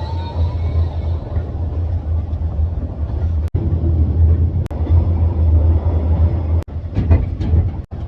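Sleeper train running, a steady low rumble heard from inside a carriage. A few knocks and rattles come near the end, and the sound breaks off for an instant several times.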